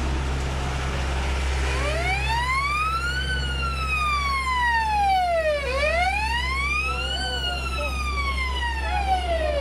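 Police siren on the wail setting, starting about two seconds in and sweeping slowly up and down in pitch, about four seconds per rise and fall, over a steady low background noise.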